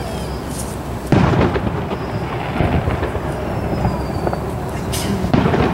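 Aerial fireworks shells bursting in a display: a sharp, loud boom about a second in that rolls off into a long rumble, and another boom near the end.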